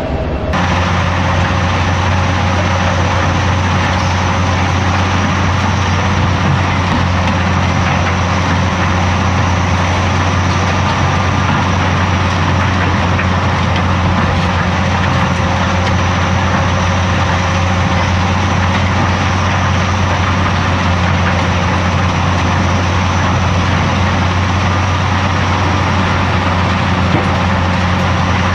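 Heavy diesel machinery running steadily: a Caterpillar 330D hydraulic excavator's engine droning under work, with no distinct knocks or impacts.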